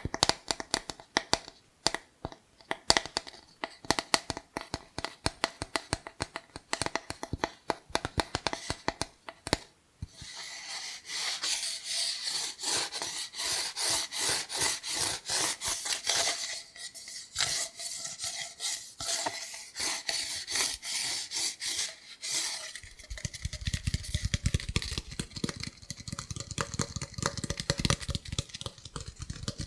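Cardboard kitchen-roll tube handled for ASMR: about ten seconds of quick fingertip tapping in sharp clicks, then steady scratching and rubbing on the cardboard. Near the end a deep rumbling rub joins in.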